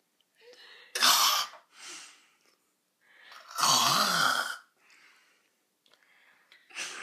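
A boy's loud, breathy vocal outbursts: a short one about a second in and a longer one around four seconds in.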